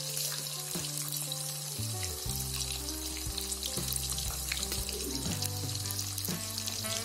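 Small banta fish frying in hot oil in a wok: a steady sizzle with many scattered crackles and pops.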